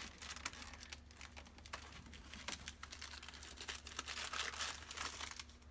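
A hand rummaging in the mesh pocket of a semi-hard carry case's lid, with plastic packaging crinkling and many light, irregular clicks and taps.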